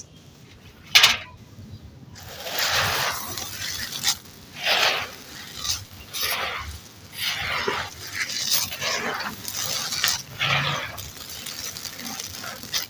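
Dry, gritty, crunchy material crumbling and crunching in a series of separate crunches, about one a second, with a sharp crack about a second in.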